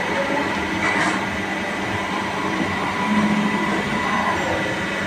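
Steady mechanical running noise with a thin, constant whine; a lower hum joins about three seconds in, and there is a brief click about a second in.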